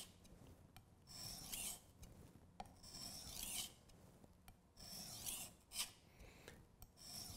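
A chef's knife blade scraped back and forth on the 1,000-grit side of a Work Sharp combination whetstone: a faint rasp with each stroke, about four strokes spaced a second or two apart. The steel is being ground down on the coarse side to raise a burr.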